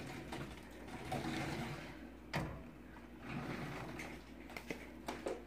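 Faint rustling and light ticks of sliced scallions being scattered by hand onto cheese-covered tortilla chips, with one sharper click about two and a half seconds in. A low steady hum runs underneath.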